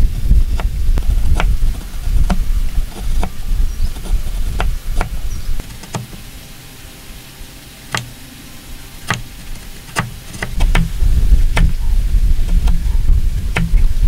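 Hand chisel paring wood: irregular sharp clicks and snaps as the blade slices through the grain. A heavy low rumble runs underneath, strongest in the first couple of seconds and the last four, quieter in the middle.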